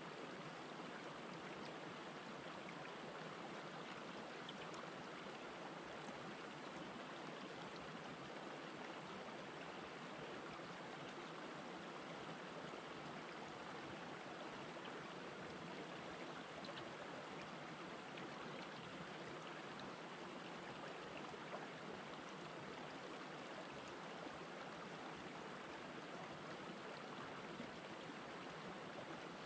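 Shallow rocky stream flowing steadily over and between boulders: an even, soft rush of running water.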